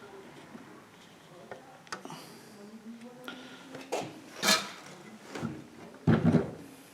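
Scattered clinks and knocks of metal tools and parts handled on a workbench. The sharpest comes about four and a half seconds in, and a heavier knock follows about six seconds in.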